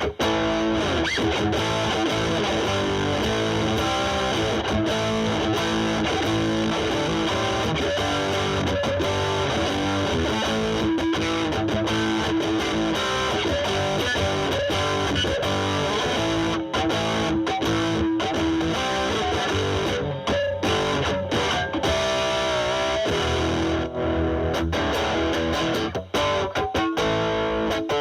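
Electric guitar (Fender Stratocaster) played continuously through a Boss DS-2 Turbo Distortion pedal into a Marshall Valvestate amp's drive channel, with the distortion cleaned up to a lighter, less saturated tone.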